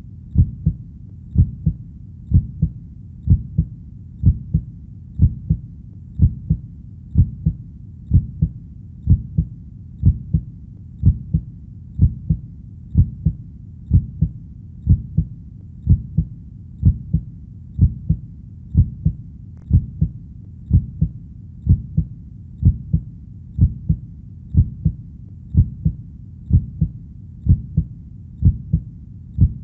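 Heartbeat sound: a steady lub-dub double thump, low-pitched, repeating at an even pace of about one beat a second.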